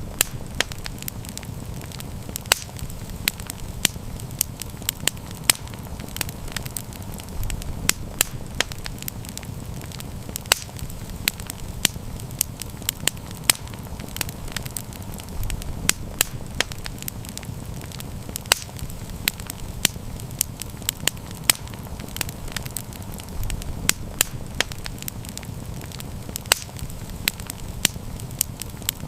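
Wood campfire crackling, with frequent sharp pops and snaps over a low, steady rush of the flames.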